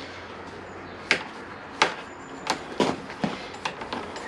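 An Oxford HotGrip heated handlebar grip is being twisted and pushed onto the left handlebar without glue, and it is a tight fit. It makes a series of about six sharp clicks and knocks spread over a few seconds.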